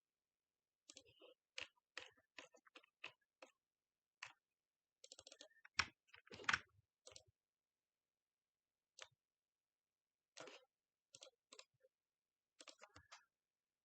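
Computer keyboard keys clicking in short, irregular bursts of typing, with quiet gaps between the bursts.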